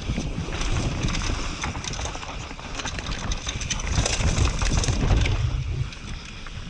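Mountain bike descending a dirt and stone trail at speed: tyres rolling over dirt and stones, the bike rattling with frequent clicks and knocks, and wind buffeting the camera microphone. It eases off a little near the end.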